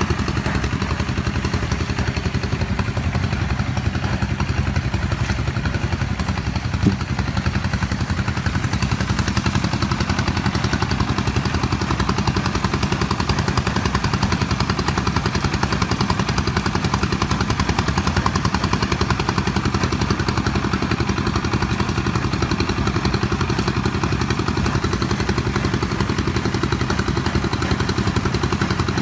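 A small engine running steadily at an even speed, with one brief knock about seven seconds in.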